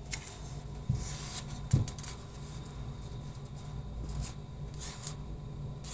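Sheets of paper rustling as worksheet pages are handled and turned, with a couple of soft knocks in the first two seconds.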